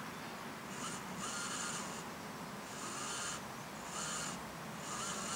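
Small electric motor of a homemade RC model boat whining in five short, irregular bursts, each spinning up with a brief rising pitch.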